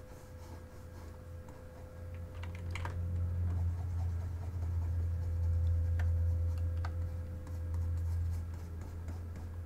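A few scattered clicks of a computer keyboard and mouse while sculpting, over a low steady hum that swells in the middle and carries a faint higher whine.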